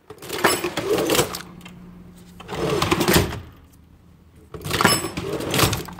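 Old mechanical cash register worked three times, each run of its key-and-drawer mechanism clattering for about a second. Its bell is judged to be dirty.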